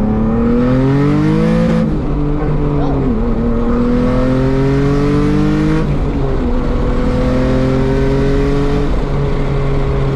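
Nissan 370Z NISMO's 3.7-litre V6, converted to a top-mount single turbo, accelerating hard on its low-boost map of about 10 psi. The engine pitch climbs through each gear and drops at upshifts about two and six seconds in.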